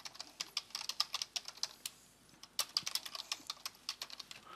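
Typing on a computer keyboard: a quick, irregular run of key clicks, with a short pause about two seconds in before the typing resumes.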